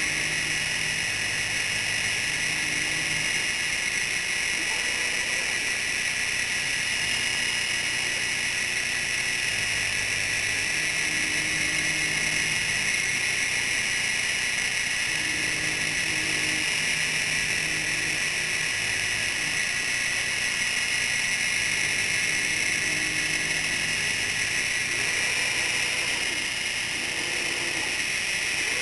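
Spindle of a small servo-driven CNC router running steadily with a high hiss while cutting a plastic face plate. Low motor tones from the axis drives start and stop every second or few seconds as the machine moves.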